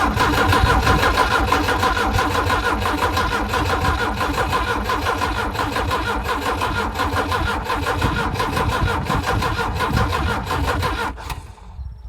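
Volvo Penta AQ131C four-cylinder marine petrol engine being cranked on its starter motor, a steady, even churn with a fast pulse and starter whine, without catching. It stops abruptly about eleven seconds in: a no-start.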